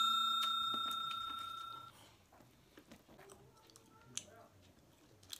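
A bell-like ding, the notification-bell sound effect of a subscribe-button animation, ringing out and fading away over about two seconds. After that there is near silence, with a faint click about four seconds in.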